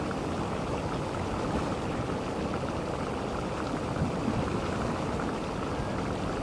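Geothermal vent at Mývatn bubbling and rushing steadily, with small scattered pops.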